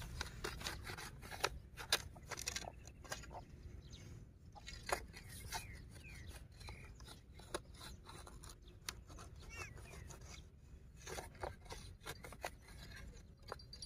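Faint scraping and irregular clicks of a thin wire being probed into a burrow in dry earth and straw.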